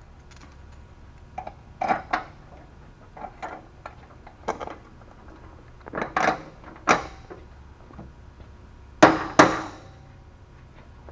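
Scattered knocks and clanks as a padded plywood seat with metal mounting bars is handled and set onto a metal go-kart frame, with two loudest knocks close together about nine seconds in.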